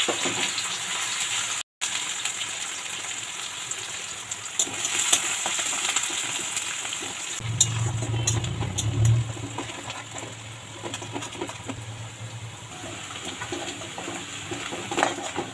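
Sliced onions sizzling steadily in hot oil in a metal kadai, frying into beresta, the crisp fried onions for biryani. The spatula scrapes and clicks against the pan now and then as they are stirred.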